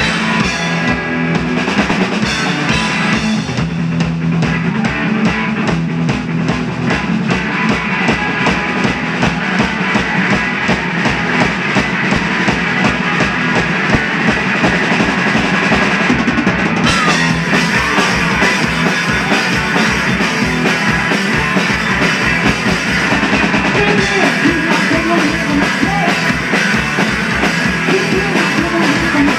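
Two-piece rock band playing loud and fast live: distorted electric guitar over a pounding drum kit, with no vocals. The cymbals get brighter a little past halfway.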